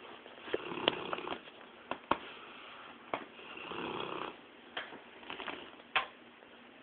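English mastiff snoring in its sleep: slow breaths swelling and fading, with several sharp clicks in between.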